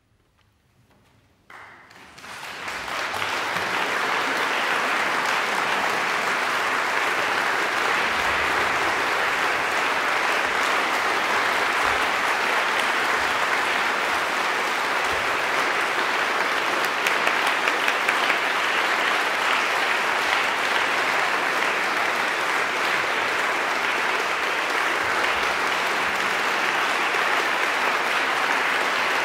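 Near silence, then an audience starts applauding about a second and a half in. The clapping builds over the next two seconds and then holds steady.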